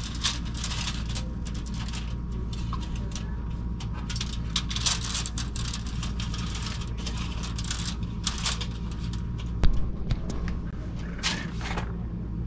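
Aluminium foil crinkling in short bursts as raw fish fillets are laid on a foil-lined baking sheet, over a steady low hum, with one sharp clack near the end.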